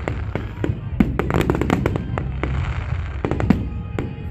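Fireworks display: a rapid string of sharp bangs and pops, several a second, over a continuous low rumble, with a stretch of crackling partway through.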